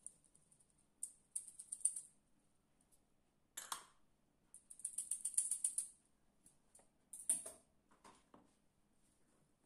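A fine-mesh metal sieve being shaken and tapped to sift flour: quick rattling ticks in two bursts, with a couple of single knocks between them.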